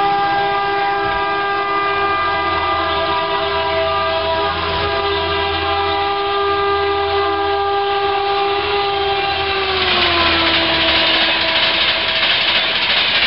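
Indian Railways electric locomotive's horn sounding one long chord of several tones as a high-speed passenger train approaches. The horn's pitch drops about ten seconds in as the locomotive passes. Then the loud rush of LHB coaches speeding by takes over.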